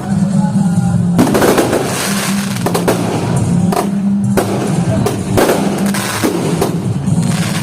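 Fireworks going off in a string of loud bangs, roughly one a second, some followed by crackling, over loud music with a steady bass line.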